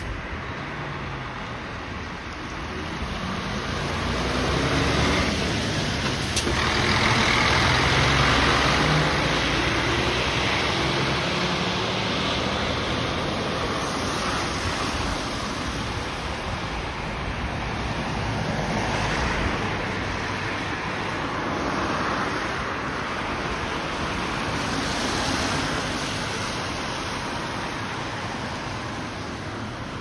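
City bus pulling away from a stop: its diesel engine revs up with a rising pitch over several seconds, loudest early on, then gives way to steady traffic and tyre noise on a wet road.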